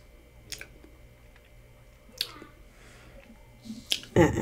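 Lip smacks and mouth clicks while tasting a soda, a few sharp clicks spaced a second or more apart, then a louder knock near the end as an aluminium soda can is set down on the table.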